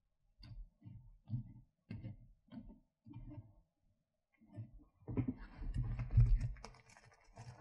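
A series of soft, evenly spaced taps, a little under two a second, standing in for the puppet carpenter's hammer blows on the roof. From about five seconds in, a louder rustling and knocking of puppet rods and cut-out props being handled takes over.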